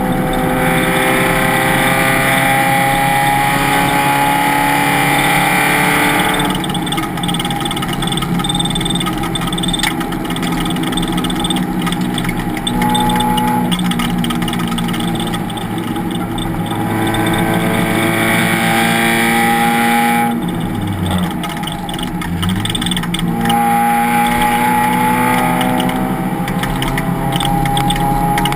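Race car engine at full throttle, its pitch rising steadily through long pulls. It falls off when the driver lifts for corners, about six seconds in and again about twenty seconds in, with a couple of short blips during the second lift.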